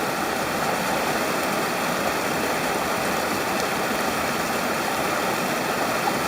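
Mountain stream water rushing steadily over rocks, a constant even wash of noise.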